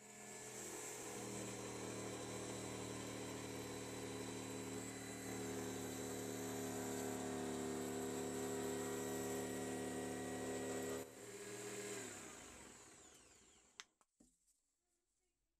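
Jigsaw mounted upside down under a homemade saw table, starting up and running steadily while a thin plywood sheet is cut. About eleven seconds in the level drops suddenly, then the motor winds down with a falling pitch and stops with a click.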